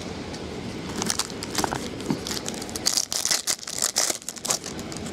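Foil wrapper of a 2010 Platinum baseball card pack being torn open and crinkled by hand. The crackling is irregular and gets loudest and most dense from about three to four and a half seconds in.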